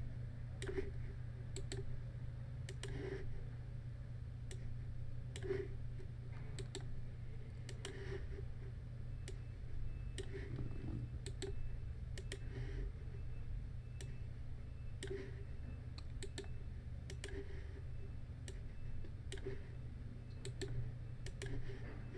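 Computer mouse clicking: irregular single clicks, roughly one every half second to second, over a steady low hum.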